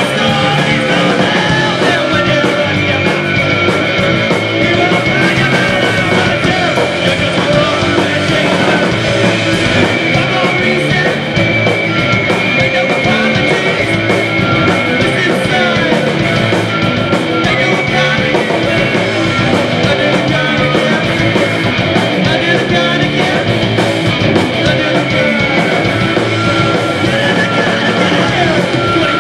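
Live post-punk band playing loud: electric guitars, bass guitar and drums.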